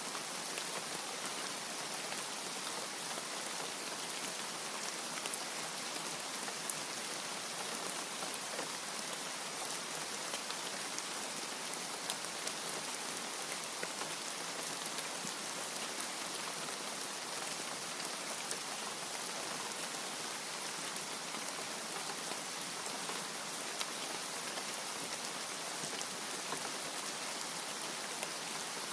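Steady rain falling, an even hiss with scattered sharper taps of single drops; no thunder.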